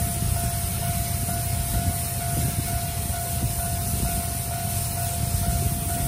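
A level-crossing warning signal sounding a steady, rapidly repeating tone, over the low rumble of the steam locomotive C57 180 close by.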